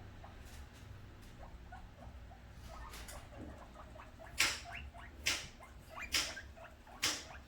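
Guinea pigs wheeking: four loud, shrill squeals about a second apart in the second half, begging for food. Faint small ticks and rustles come before them.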